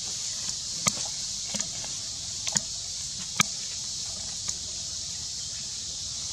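Steady high-pitched insect drone from the forest, with a handful of sharp clicks and crackles in the first few seconds from dry fallen leaves being handled by a foraging macaque.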